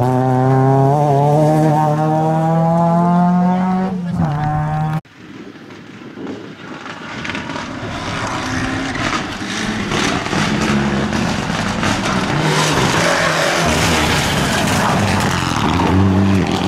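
A Volkswagen Golf rally car's engine pulling hard, its pitch rising steadily, with a brief gear change about four seconds in, before the sound cuts off suddenly. Then a Mitsubishi Lancer Evolution rally car's turbocharged four-cylinder approaches from a distance, growing steadily louder as it drives into a hairpin.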